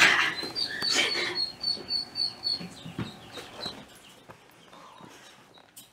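Young yellow-bellied marmot giving a run of short, high chirps, about four a second, over the first few seconds, with rustling and knocks of handling.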